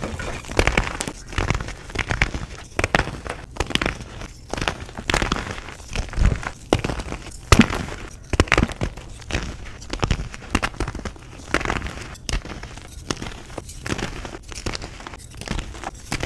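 Blocks of reformed gym chalk being crushed and crumbled, a run of irregular crunches and crackles with a sharper crunch about halfway through.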